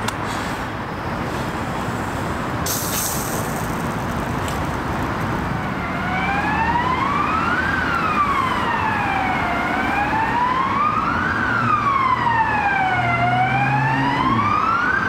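Emergency-vehicle siren wailing, a smooth slow rise and fall about every three and a half seconds, starting about six seconds in over steady city traffic noise.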